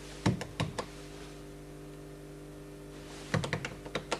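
Sharp clicks from a wall-mounted panel being worked by hand: a few separate clicks about a quarter of a second in, then a quick run of rapid clicks near the end, over a steady electrical hum.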